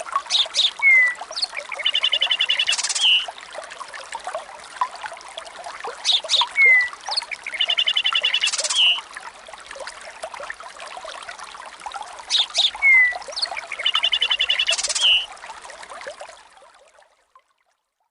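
OnePlus OxygenOS 14 nature-sound ringtone: a recorded loop of trickling water with bird chirps and a quick trill, played three times over and fading out near the end.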